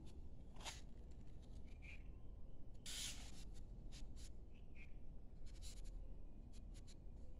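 A metal tea tin being turned in the hands on a wooden tabletop. Fingers rub and scrape on it, with a scatter of light clicks and taps, the loudest a scrape about three seconds in.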